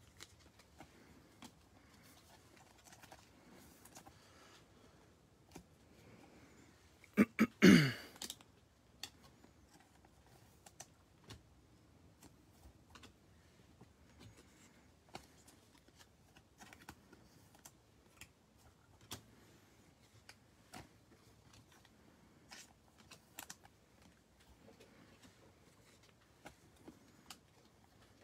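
Baseball trading cards being handled and dealt onto stacks on a table mat: light, scattered taps and clicks. About seven and a half seconds in comes a single brief, much louder noise with a falling tone.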